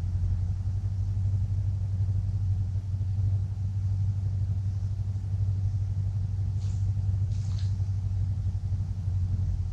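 A steady low rumble, with a couple of faint, short high chirps about seven seconds in.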